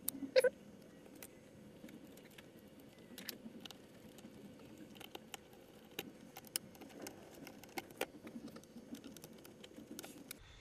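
Scattered light clicks and taps of hands handling and pressing an aluminium water-cooling block into place on a laptop's opened motherboard, with a slightly louder pair of knocks about half a second in.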